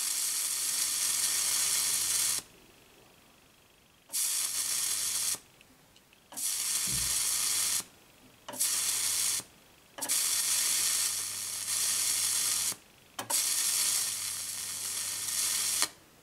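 Electric arcs drawn from a mains-fed choke (inductor) through a rectifier, sizzling with a low hum in six bursts of about one to three seconds each, each starting and cutting off suddenly. The choke's stored magnetic energy keeps each arc going as the circuit is pulled open.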